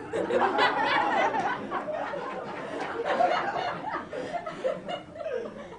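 A classroom of teenage students laughing together. It starts suddenly, stays loudest for the first three seconds or so, then tapers off near the end.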